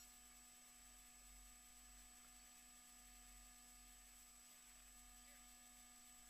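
Near silence: only a faint steady hum and a thin high-pitched whine over low hiss, unchanging throughout.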